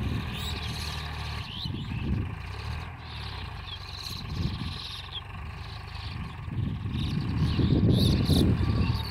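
Eicher 551 tractor's diesel engine running, with birds chirping over it. A rough low rumble grows louder near the end.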